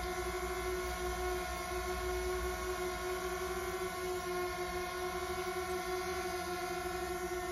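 DJI Mini 2 quadcopter drone hovering, its propellers giving a steady whine with several overtones.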